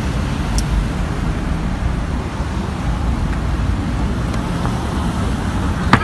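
Road traffic, cars passing, with a steady low rumble.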